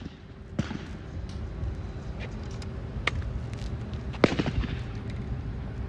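Shotgun shots at a trap range: one shortly after the start, another about three seconds in, and the loudest just after four seconds, each with a short echo, over a steady low rumble.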